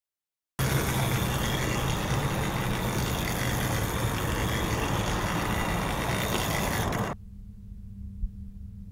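Steady mechanical whirring and rumbling that starts suddenly about half a second in and cuts off abruptly about two seconds before the end, leaving only a faint hum.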